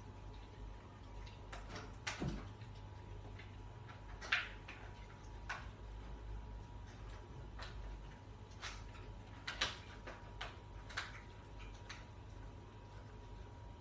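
A dog gnawing on a toy: scattered, irregular clicks and light taps, over a steady low hum.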